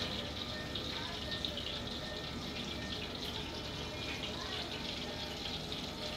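Pork belly frying in its own rendered fat under the lid of a Saladmaster electric skillet: a steady sizzle.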